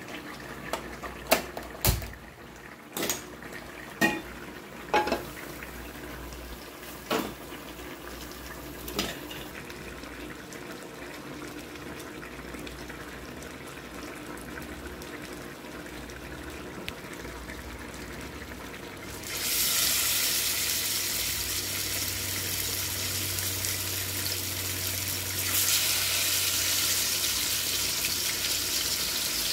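Kitchen utensils and dishes knocking, about seven sharp clacks over the first ten seconds. Then a tap starts running into a sink about two-thirds of the way through and keeps running, a little louder near the end.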